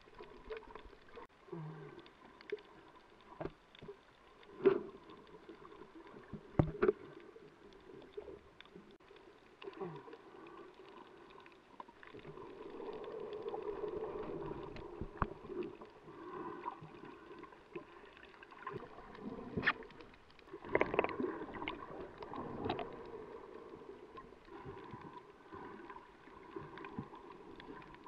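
Underwater sound of shallow sea water surging and churning, with scattered sharp clicks and knocks. The churning swells about twelve seconds in, as whitewater from a breaking wave washes over, and again near twenty seconds.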